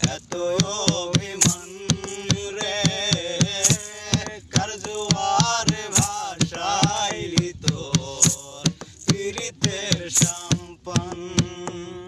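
Male singing of a Bengali folk song, accompanied by a quick, steady beat of hand slaps on a plastic jerrycan played as a drum.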